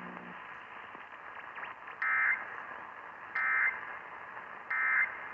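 Three short, buzzy data bursts of an Emergency Alert System end-of-message code, about a second and a half apart over faint radio hiss. They mark the end of the tornado warning message.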